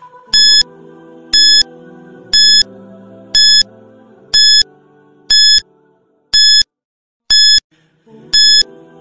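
Quiz countdown timer beeping once a second, nine short high beeps, over soft background music that fades out about two-thirds of the way through.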